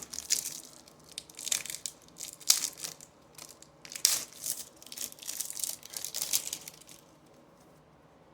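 Trading-card pack wrapper crinkling and tearing in a run of short, irregular rustles that stop about seven seconds in.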